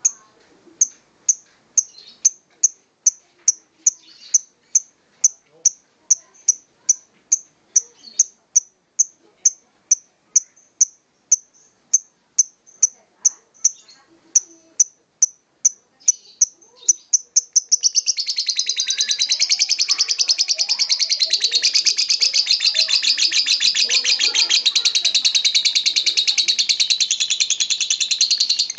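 Lovebird calling: sharp, high chirps at about two a second that quicken and, about eighteen seconds in, run together into one long, continuous rapid chattering trill.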